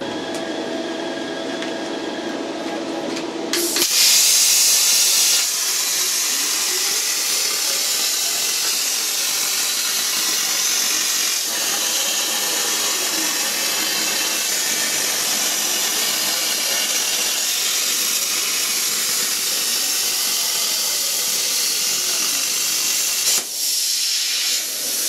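CNC plasma cutter cutting a circle out of 5 mm plate. A steady hum runs for the first few seconds, then the arc fires about three and a half seconds in with a sudden loud hiss, loudest at the pierce. The hissing then runs steadily as the torch cuts, dipping briefly near the end.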